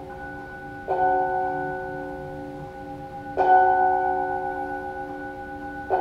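A bell struck three times, about two and a half seconds apart, each stroke ringing on and slowly fading before the next.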